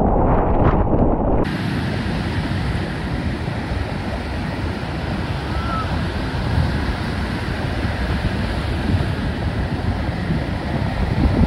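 Muffled rush of churning water heard through a camera's waterproof housing, cutting after about a second and a half to the steady wash of surf breaking on a beach, with wind on the microphone.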